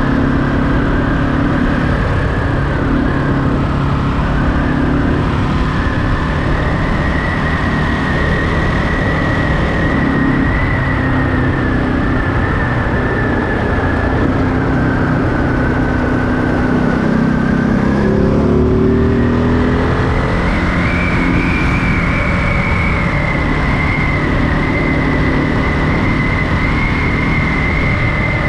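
Ducati Monster 937's L-twin engine running while riding, with steady wind and road noise. About seventeen seconds in the engine note rises as the bike accelerates, then settles back to a steady run.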